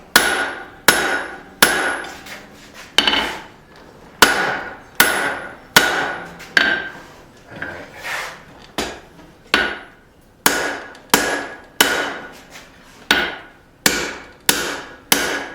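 Hand hammer striking hot steel on an anvil in a steady rhythm, about one blow every three-quarters of a second, each blow ringing briefly: forging out a tong blank.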